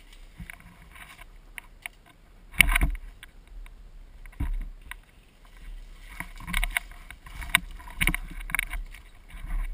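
Irregular rustling and knocking close to the microphone, with louder clacks about 2.7 s and 8 s in and a busier stretch near the end.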